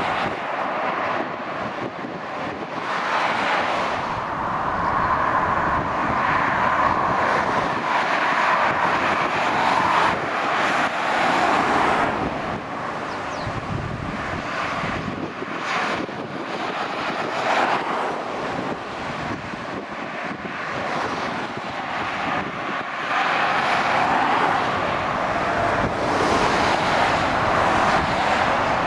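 Motorway traffic passing below: lorries, cars and a coach, a continuous tyre and engine noise that swells and eases several times as the heavier vehicles come through.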